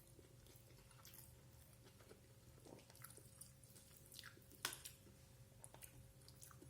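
Faint chewing and mouth sounds of a person eating, with scattered small clicks, the sharpest a little past halfway, over a faint steady hum.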